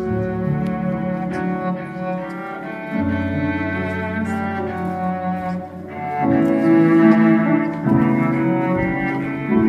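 Ensemble of Aerophone digital wind instruments with cellos and violins playing a slow tune in long held notes. A deep sustained bass note comes in about three seconds in, and the music grows louder about halfway through.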